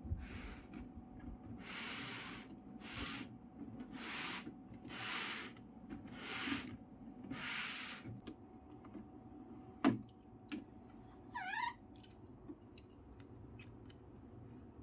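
Figure box packaging being handled: about seven rubbing, scraping strokes roughly a second apart, then a sharp click and a brief squeak.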